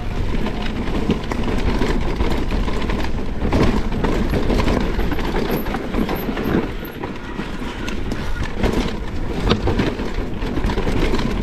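Enduro mountain bike riding down a rough trail: tyres rolling over dirt and rock, with many quick knocks and rattles from the bike over bumps, and wind rumbling on the microphone.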